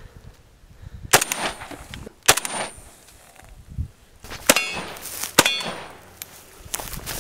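Four single shots from an M+M M10-762 AK-pattern rifle in 7.62x39, fired one to two seconds apart. Each shot is followed by a high ringing clang as a steel plate target is hit.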